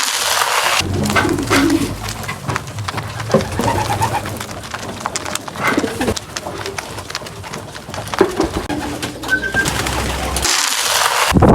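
Pigeons cooing, short low calls here and there, with scattered clicks and rustling from the birds moving about.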